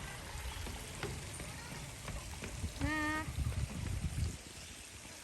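Steady hiss of outdoor background noise with wind rumbling on the microphone, and a short voiced sound from a person about three seconds in.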